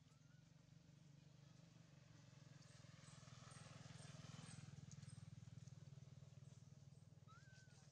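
Near silence: faint outdoor ambience with a low steady hum, a soft rushing sound that swells and fades around the middle, and a single short chirp near the end.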